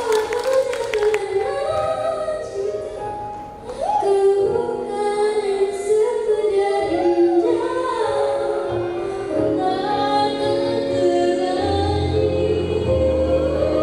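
A choir singing, with women's voices carrying long held notes and some sliding pitches; a low part comes in near the end.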